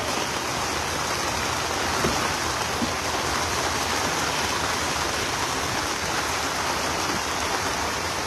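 Heavy rain falling in a steady, even hiss.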